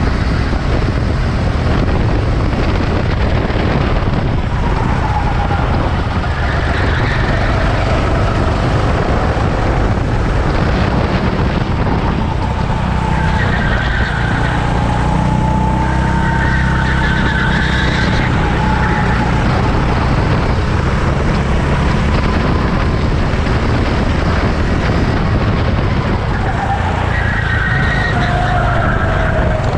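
Racing car engines running on a circuit, their pitch gliding up and down as cars pass, over a loud, steady low rumble.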